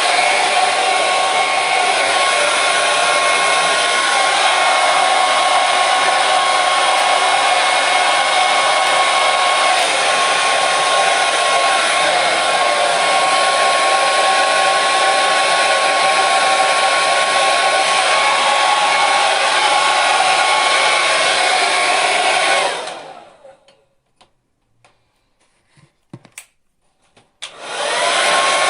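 Hair dryer running with a steady blowing rush and motor whine. About 23 seconds in it is switched off and the motor winds down with a falling whine. After a few seconds of near silence with faint clicks, it starts again and the whine rises back up to full speed.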